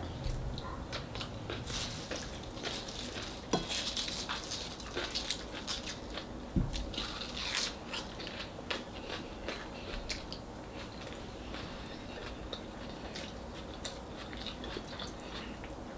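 Close-up eating sounds: a person chewing and biting fried fish and rice eaten by hand, with irregular small crunches and mouth clicks, a few louder ones scattered through.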